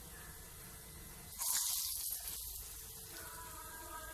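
Hot oil sizzling as falafel balls deep-fry in a steel kadai, with a sudden loud burst of sizzling about one and a half seconds in as another ball goes into the oil, fading over a second.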